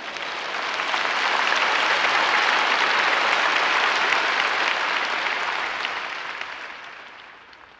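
A large audience applauding, the clapping swelling over the first couple of seconds, holding, then dying away near the end.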